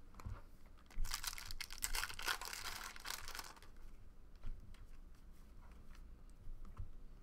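Foil wrapper of a trading-card pack crinkling as it is torn open, starting about a second in and lasting about two and a half seconds, followed by faint light clicks of cards being handled.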